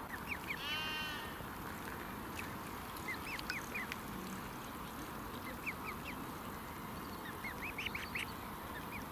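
Ducks and ducklings calling. A quick run of stacked notes comes just under a second in, followed by small groups of short, high peeps, all over a steady background hiss.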